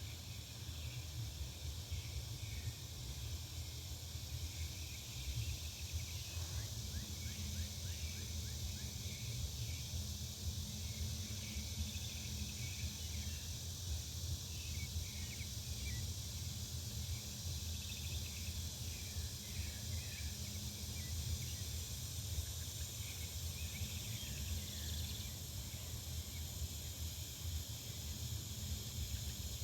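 Residential back-yard ambience: a steady low rumble, with a faint hum that fades in and out, under many small bird chirps and a steady high hiss.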